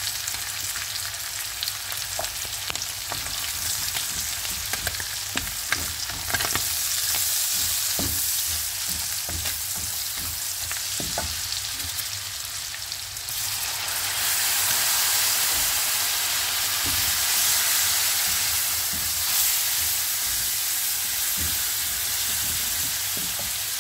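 Oil sizzling in a frying pan with onions, bell peppers, fish and freshly added ground spices, while a silicone spatula scrapes and taps against the pan as it is stirred. The sizzle grows louder a little past halfway.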